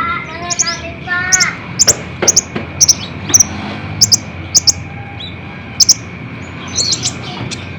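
Sunbird song: sharp, very high chips, often in quick pairs, repeating every half second to a second. A few lower warbled notes come in the first second and a half.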